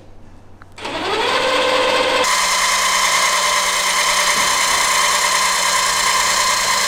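Electric linear actuators (10,000-newton units) whining as they raise the folding steel deck frame of a truck. The motors spin up with a rising whine about a second in, then settle into a louder, steady whir.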